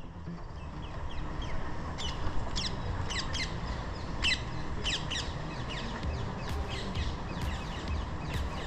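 Birds calling over and over, short sharp high chirps that sweep quickly downward, a few each second, over a steady low outdoor rumble.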